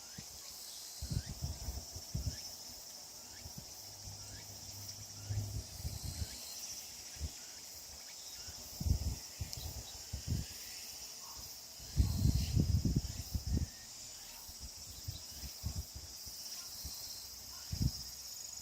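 Steady high-pitched insect chorus, with irregular low rustling and bumping sounds coming and going, loudest in a cluster about twelve seconds in.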